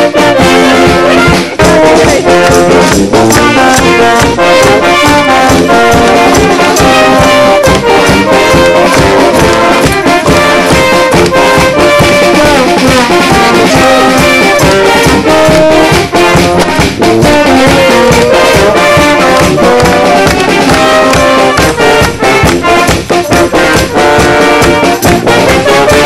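Music led by brass instruments, trumpets and trombones, playing a tune with a steady beat.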